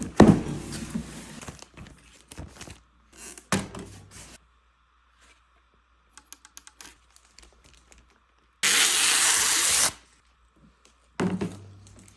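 Handling sounds: a few thuds and knocks with scattered clicks, and about two-thirds of the way through one loud ripping or tearing noise lasting a little over a second.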